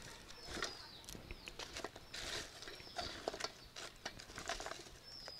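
Scattered light crackles and clicks of dry firewood sticks, burning in a wood-fired clay stove and being handled beside it. A few short, high falling bird chirps come through now and then.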